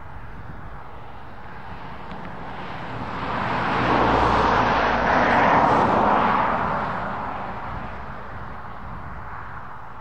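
Tractors and a trailed potato harvester passing close at work: engine hum and the rush and rattle of the machinery swell to a peak in the middle and then fade away.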